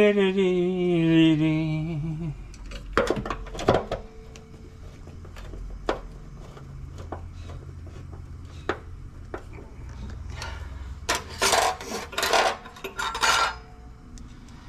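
A man's voice draws out a long falling note for about two seconds. Small metal clicks and clinks from a screwdriver and fittings follow as the wiring is connected at the top of an electric water heater. Near the end come a few louder scraping, rustling bursts.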